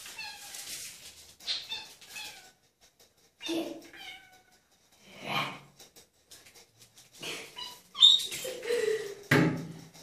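Budgerigar chirping and chattering in a series of short, high warbling calls with quiet gaps between them.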